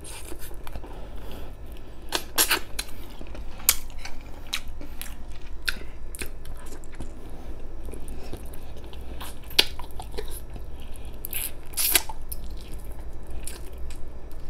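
A person chewing and biting meat off braised pork ribs held by hand, with irregular mouth smacks and clicks.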